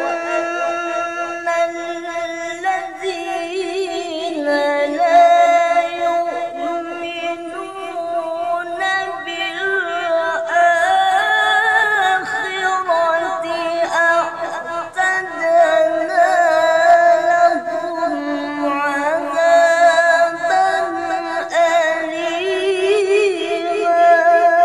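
A man reciting the Qur'an in the melodic tilawah style, solo and unaccompanied. He holds long, drawn-out notes and decorates them with wavering ornaments, and his voice rises and falls between phrases.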